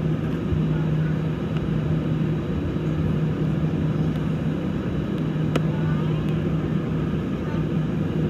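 Airbus A320 cabin noise while taxiing: the engines running at a steady low hum under a constant rush of noise, with a single sharp click about halfway through.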